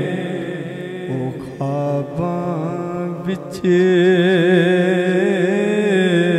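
Punjabi naat sung by a man: long, wavering melismatic notes held without words, over a steady drone beneath. It rises in loudness again a little past the middle.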